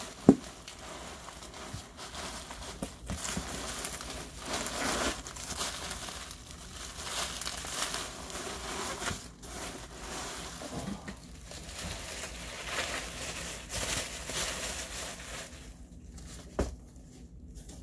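Plastic bubble wrap and packing material crinkling and rustling as a packed amplifier is unwrapped by hand, with a knock right at the start and another near the end.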